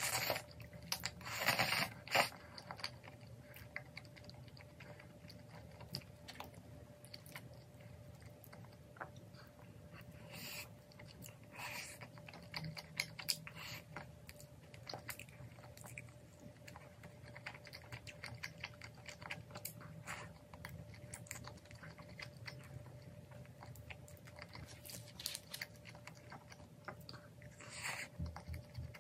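Close-up eating sounds of a person chewing spicy cheese-topped braised chicken with glass noodles: wet chewing and mouth sounds with scattered sharp clicks. A longer noisy stretch in the first two seconds fits noodles being slurped.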